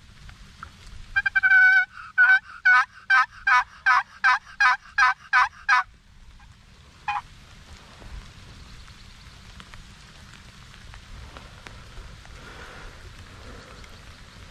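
Turkey yelping: a short opening note, then a run of about ten loud, evenly spaced yelps at roughly three a second, and one more single yelp about a second later.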